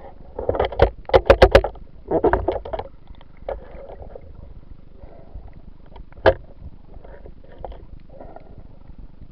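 Muffled knocks and water noise heard through an underwater camera housing during spearfishing, with a run of quick clicks about a second in and one sharp knock a little past six seconds.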